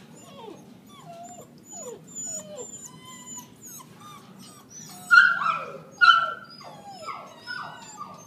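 Dogs whining and whimpering in many short, high, falling cries, with two louder yelps about five and six seconds in.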